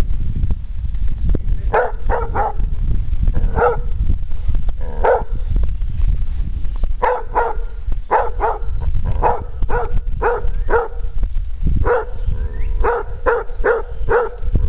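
A dog barking: about twenty short, sharp barks, mostly in quick runs of two or three, beginning about two seconds in and coming more often in the second half.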